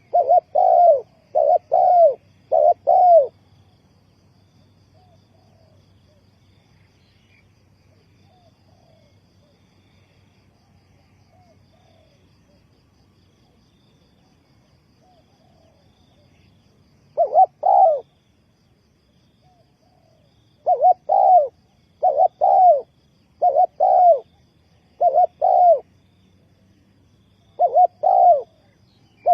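Spotted dove cooing in short phrases of several coos, with a long pause in the middle, while fainter coos sound in the gaps.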